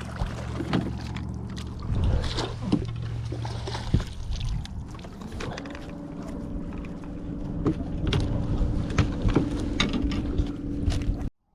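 A boat motor hums steadily, with a higher-pitched hum joining about halfway through. Scattered clicks and knocks of fishing gear being handled run over it. Everything cuts off suddenly near the end.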